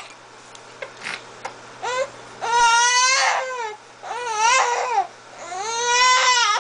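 Young infant fussing: about four high-pitched cries, each rising and falling, the first one short and the others longer, with brief pauses between.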